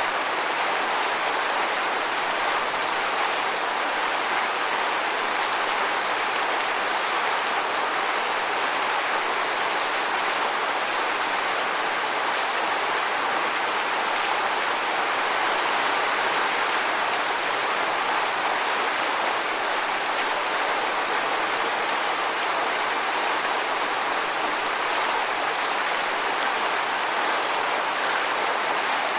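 Waterfall: falling water rushing in a steady, even hiss with little low rumble.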